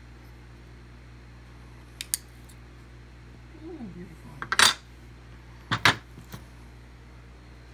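Pieces of cut stained glass clinking as they are handled and set down on a plastic grid work surface: two light ticks, then two louder clattering clinks about a second apart.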